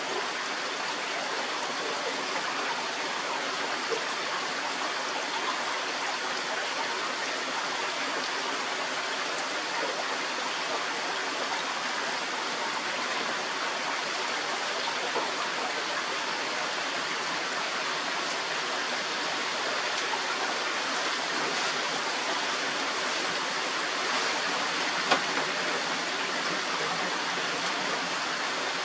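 Steady rain falling during a thunderstorm, an even hiss with a faint tap now and then.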